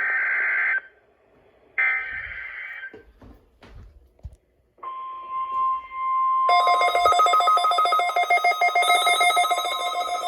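Emergency Alert System SAME header bursts, the buzzy two-tone digital data that opens a Required Weekly Test, sound twice in the first three seconds. A steady single-pitch NOAA Weather Radio alert tone starts about five seconds in. About a second and a half later, music with a quick repeating pulse begins over it.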